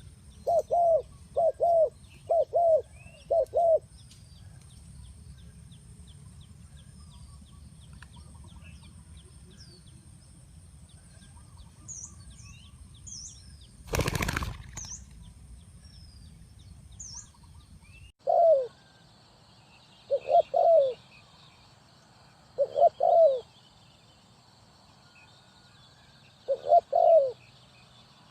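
Spotted doves cooing in short phrases of low, repeated coo notes: a run of phrases in the first few seconds, a long pause, then more phrases through the second half. Small birds chirp faintly and high during the pause, and a loud noisy burst of about a second comes roughly halfway through.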